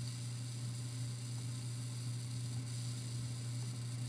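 Steady low electrical hum, mains hum on the recording, with a faint even hiss above it.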